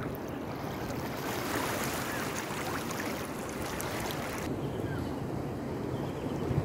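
Shallow seawater washing and lapping over rocks at the shoreline, a steady rushing hiss. The higher part of the hiss drops away about four and a half seconds in.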